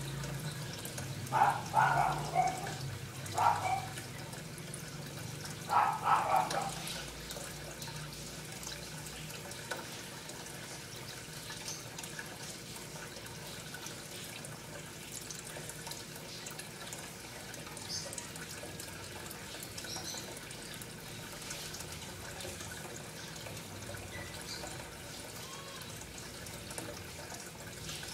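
Aquarium filter running: a steady trickle of water over a low motor hum. Three brief louder noises come in the first six seconds or so.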